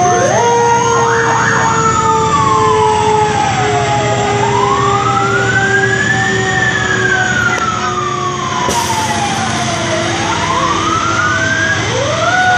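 Fire truck sirens wailing as the trucks pass. One siren climbs and falls slowly in pitch, taking several seconds each way, over steadier held tones, and another starts winding up near the end.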